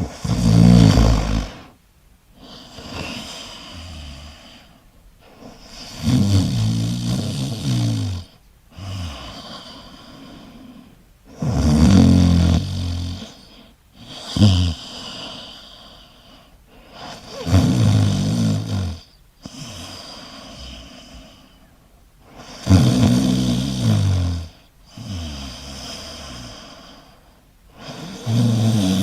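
Steady snoring: a loud snore about every five to six seconds, each followed by a longer, quieter breath.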